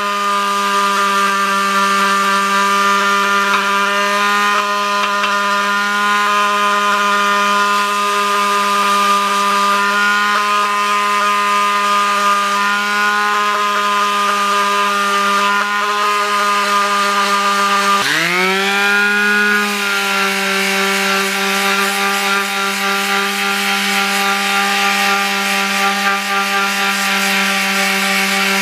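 Harbor Freight electric detail sander running with a steady, even hum as its pad sands the finish off a motorcycle's cast wheel hub. About two-thirds of the way through, its pitch drops sharply and climbs back up.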